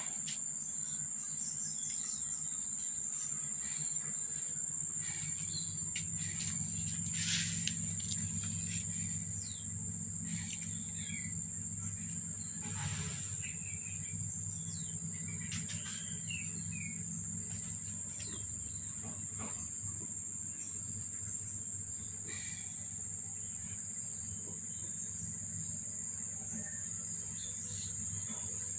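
Insects droning steadily at a high pitch, with scattered faint bird chirps over it and a low steady hum underneath.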